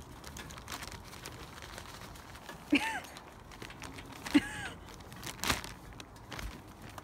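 A plastic bag crinkling as a goat mouths and tugs at it, with two short squeaks that rise and fall in pitch about a second and a half apart, and a knock a little later.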